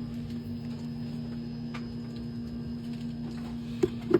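A steady low electrical hum with a few faint clicks, about two seconds in and again near the end.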